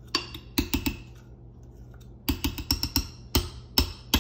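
A measuring cup of peanut butter being tapped and knocked to shake the sticky peanut butter out. It gives about a dozen sharp knocks in irregular clusters.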